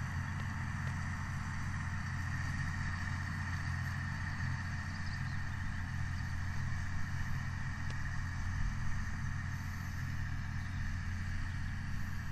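Massey Ferguson 6465 tractor running a Vicon RF 2235 round baler while baling silage: a steady low engine hum with a fainter whine above it.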